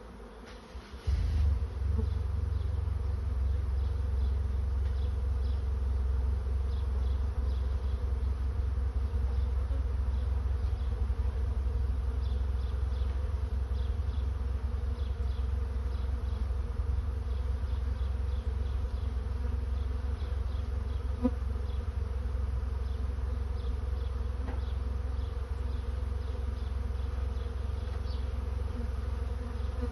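A swarm of honey bees in flight, buzzing as a dense, steady hum. About a second in, a loud low rumble comes in suddenly and carries on underneath the buzzing.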